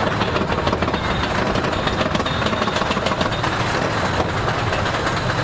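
Mine-train roller coaster cars rattling and rumbling along the track at speed, a steady loud clatter of wheels on rails.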